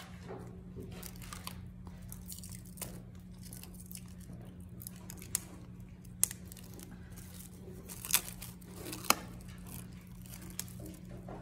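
Plastic wrap being handled and pulled apart, crinkling and tearing in scattered sharp crackles, the loudest about eight and nine seconds in, over a steady low hum.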